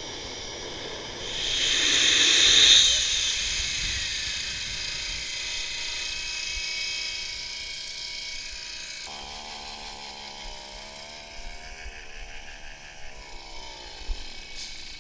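Homemade car-turbocharger jet engine: a loud rushing roar swells for about a second and a half and cuts off abruptly, leaving a high whine that slowly fades. About nine seconds in, a fainter motor hum starts suddenly, runs steadily, then winds down in pitch near the end.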